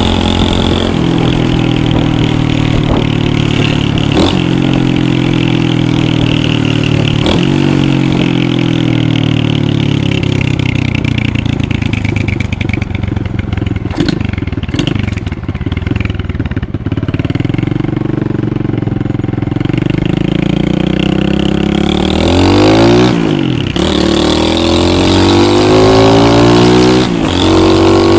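Lifan 125cc pit bike engine being ridden: its note sinks slowly over the first dozen seconds, runs low for a while, then revs up sharply about 22 seconds in, dips briefly and climbs again, with one more short dip near the end.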